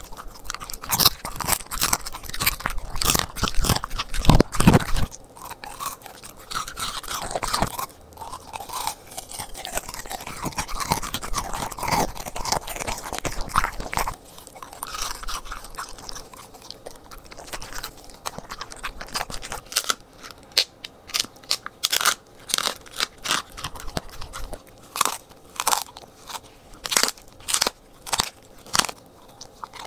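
A corgi chewing and crunching raw food up close, with wet chomps and crunchy bites. Near the end the chomps come in a steady run of sharp bites, about two a second.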